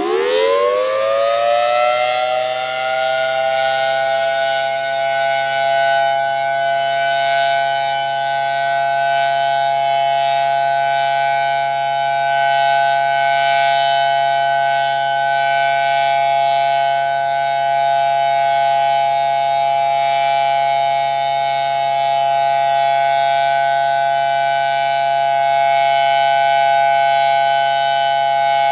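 Civil defense air raid siren winding up, its pitch rising over the first second or two, then holding a loud, steady tone made of several pitches sounding at once.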